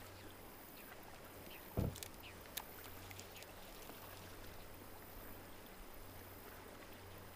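Faint, steady rush of river water flowing around a kayak. A dull knock comes about two seconds in, and a small click follows shortly after.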